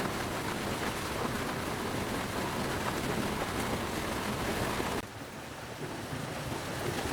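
Steady hissing water noise, as of rain or running water. It drops sharply quieter about five seconds in and comes back about a second later.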